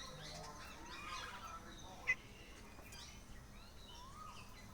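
Several small songbirds chirping and calling over each other in short rising and falling notes, with one louder sharp chirp about two seconds in.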